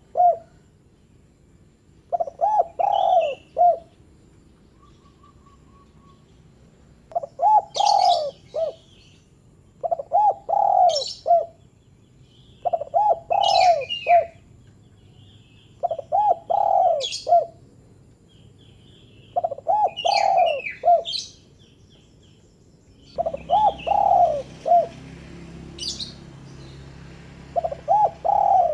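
Spotted dove (derkuku/terkukur) cooing in short phrases of several notes, repeated eight times with pauses of a couple of seconds between. Other small birds chirp with brief high notes in the gaps.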